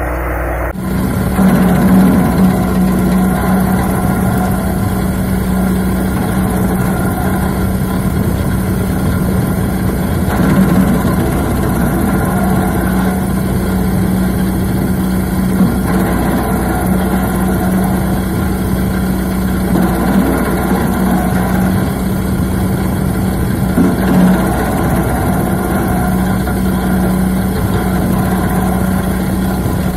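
Petrol engine of an Arpal AM-80BD branch chipper running steadily at working speed, with a few brief swells in loudness. The sound starts abruptly under a second in.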